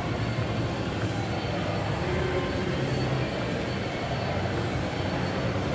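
Steady low rumble and hum of background noise, with no distinct events standing out.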